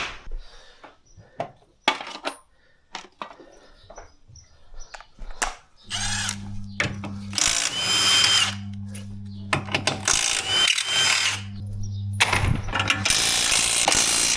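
Scattered clicks and knocks of tools being handled, then a power tool running in four whirring bursts over about the last eight seconds, with a steady low hum underneath.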